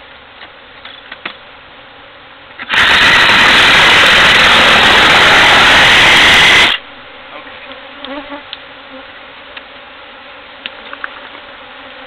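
Cordless reciprocating saw running for about four seconds as it cuts into a feral honeybee hive, starting and stopping abruptly. Honeybees buzz around it before and after.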